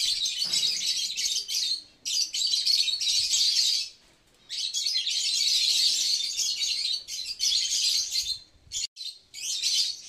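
A flock of African lovebirds calling loudly all at once in a dense, high-pitched chatter, with short lulls about two and four seconds in. The birds are stirred up by the first of them being let out of its cage into the aviary.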